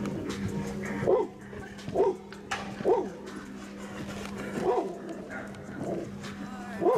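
A dog barking about six times, roughly once a second, over background music.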